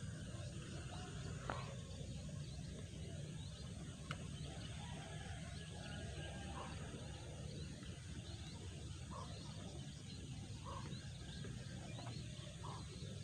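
Faint rural outdoor ambience: scattered small bird calls and chirps over a steady low rumble, with two sharp clicks about two and a half seconds apart.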